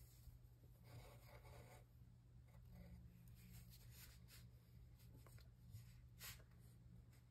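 Faint pencil scratching on a paper worksheet as a word is circled, about a second in, followed by a few short light scratches and ticks of pencil and paper over a low steady hum.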